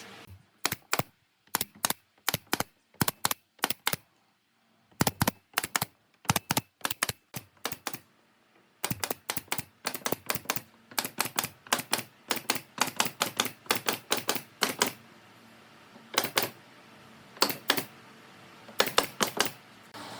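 Repeated sharp strikes on wood, many in quick pairs, with short silent gaps between groups and a faster run of about three to four strikes a second in the middle.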